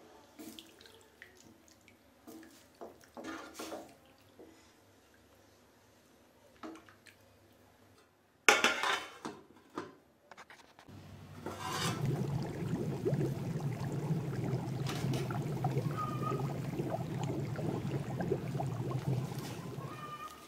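A wooden spatula scrapes and stirs spice powder into curry liquid in a steel pot, then a metal plate lid clanks down on the pot about eight seconds in. From about eleven seconds the covered tamarind curry base bubbles at a steady, vigorous boil.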